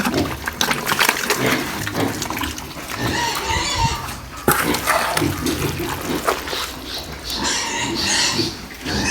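Pigs eating feed: a steady run of wet chomping and slurping.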